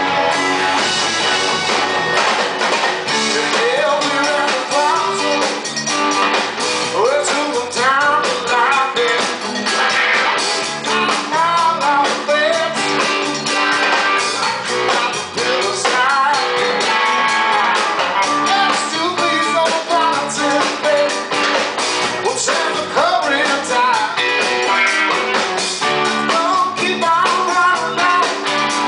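Blues-rock band playing live in an instrumental stretch: electric guitars and bass over a drum kit and hand-played percussion drums, with notes that bend up and down throughout.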